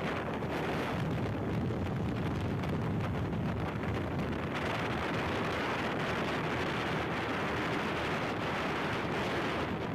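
Steady wind rush over the microphone of a moving motorcycle, with a low rumble of engine and road noise beneath it.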